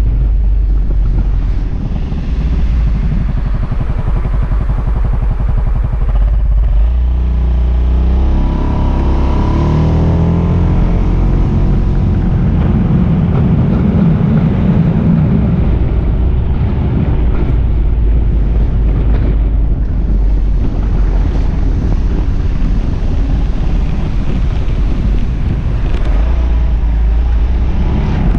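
Suzuki Burgman AN400 maxi-scooter riding at town speed: its single-cylinder four-stroke engine runs steadily under a low rumble of wind buffeting the microphone. The engine note rises in pitch about seven to ten seconds in as the scooter picks up speed.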